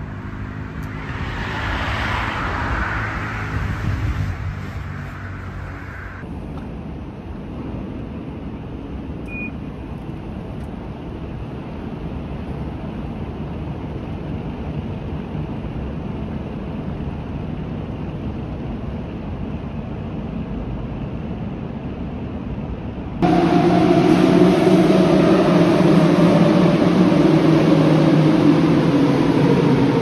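Steady hum of a metro station. About two-thirds of the way through it gives way to a louder Athens Metro train running alongside the platform. The whine of its motors falls slowly in pitch as the train slows.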